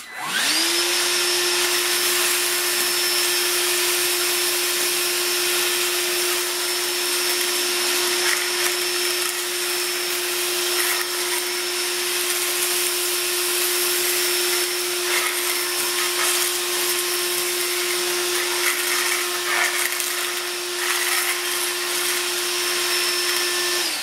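Ryobi P770 ONE+ 18-volt cordless wet/dry shop vacuum switched on, spinning up within half a second, then running steadily with a constant hum and a high whistle. Its floor tool sucks up dry leaves and dust, with occasional short rattles partway through.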